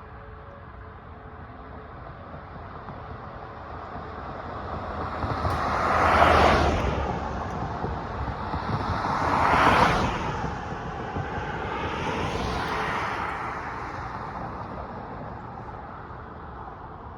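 Three cars passing one after another, each a rush of tyre and engine noise that swells and fades, about 6, 10 and 12 seconds in.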